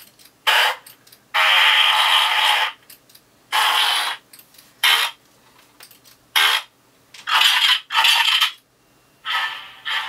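Fart sound effects played in about eight separate bursts of different lengths from the small speaker of an Arduino-driven E-11 blaster prop. The longest burst, over a second, comes about a second and a half in.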